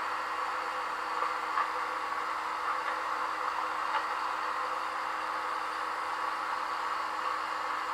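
Steady hiss with a low constant hum, and faint ticks about one and a half and four seconds in.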